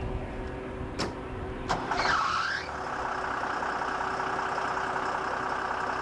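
DEUTZ-FAHR Power Liner Climber combine harvester running steadily while it harvests across a slope, with a steady hum. Two sharp clicks come about one and a half seconds in, followed by a short gliding, whistle-like sound about two seconds in.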